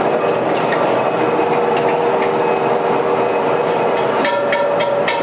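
A rim repair machine running on a steel wheel rim with a steady mechanical hum, joined about four seconds in by regular metallic ticks at about four a second.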